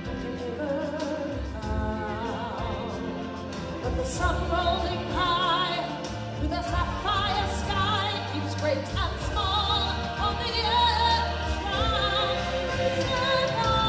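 Live show music over a sound system: singing with long held notes and wide vibrato, over orchestral backing and a heavy bass that comes and goes.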